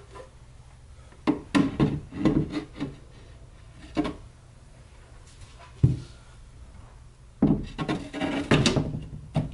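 Laminated particleboard bookcase shelves being slid into the cabinet and set down on their shelf supports: clusters of wooden knocks and scraping, with one sharp single knock near the middle.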